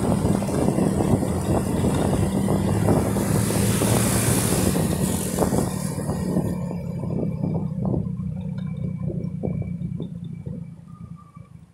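Engine of the moving vehicle carrying the recorder, running at a steady pitch, with wind rushing and buffeting the microphone. The wind rush drops about six seconds in, and the sound fades out near the end.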